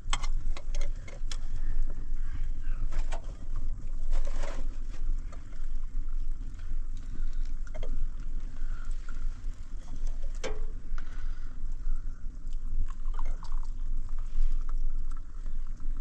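Steady low rumble with scattered sharp clicks and a few metal clinks as a blackened metal teapot is set on and lifted from a pan of glowing charcoal. The clearest clink, with a short ring, comes about ten seconds in.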